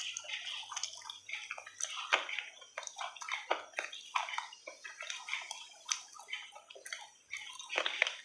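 Close, wet clicking and crackling as pieces of food are picked apart and handled by fingers, in small irregular bursts.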